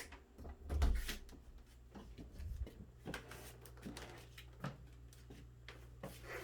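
Scattered light knocks and clicks in a small room, with a dull thump about a second in, over a faint steady hum.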